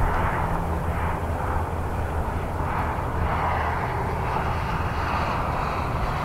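Small single-engine propeller plane climbing out after takeoff, its engine and propeller giving a steady drone.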